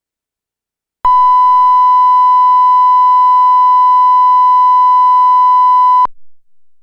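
Broadcast line-up test tone that goes with colour bars: one steady, pure, loud beep starting about a second in, held for about five seconds, then cutting off suddenly.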